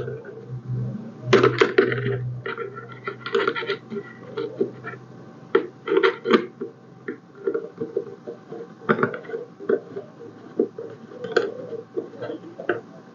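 Irregular clicks, knocks and rattles of teleprompter parts and a cell phone mount being handled and fitted together by hand, in short clusters.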